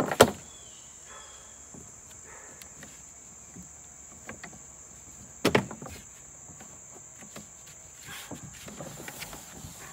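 Handling sounds as a homemade wooden canoe yoke is taken apart and its bungee cords undone: a sharp knock right at the start, another about halfway through, and lighter clatter near the end. A steady high insect trill runs underneath.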